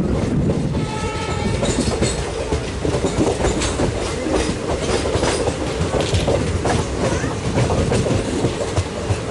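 Express train running through at speed, its wheels clattering rhythmically over the rail joints with a steady heavy rumble, and a short locomotive horn blast about a second in.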